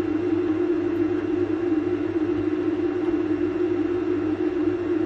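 Steady mechanical drone of a small motor running, an even hum that does not change.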